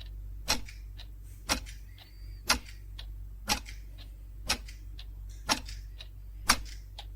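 Clock ticking steadily: a louder tick about once a second with a fainter tick between each.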